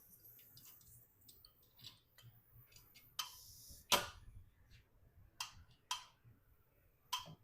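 Scattered small metallic clicks and taps, with a sharper, louder knock about four seconds in: valve springs, retainers and locks being handled and fitted on a GM 5.3 V8 cylinder head with a spring compressor.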